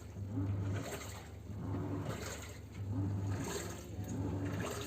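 Samsung single-tub washing machine agitating: the motor hums in pulses about every second, with water churning and sloshing in the tub. It is running again after its burnt control module was repaired.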